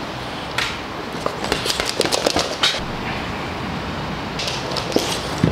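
Bulldog puppy pushing a ball across a hardwood floor: irregular clicks and knocks of claws and ball, in a cluster over the first half and again near the end.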